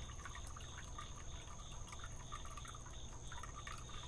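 Faint outdoor ambience from a wooded yard: a steady high-pitched insect drone with many short, scattered chirps and ticks.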